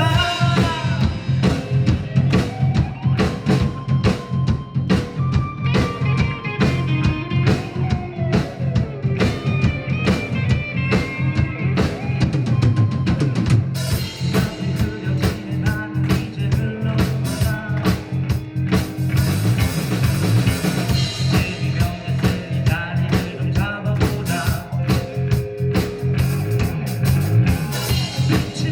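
Rock band playing an instrumental passage without vocals: drum kit with kick and snare, bass, and guitar lines. Cymbals come in heavier about halfway through.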